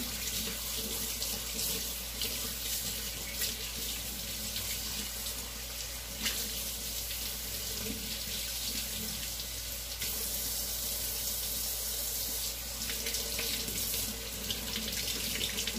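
Kitchen tap running steadily into the sink while an immersion blender attachment is rinsed under it, with a few faint knocks.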